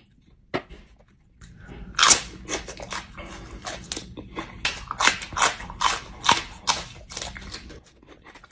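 A single sharp click, then a person chewing something crunchy close to the microphone: loud, irregular crunches about two a second with smaller ones between, stopping shortly before the end.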